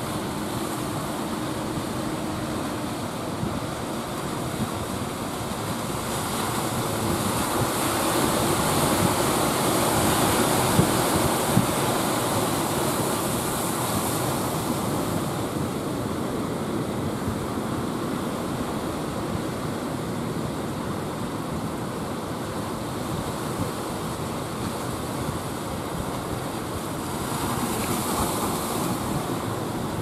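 Surf breaking and washing up a beach, with wind on the microphone. The rush of the waves swells louder around ten seconds in and again near the end.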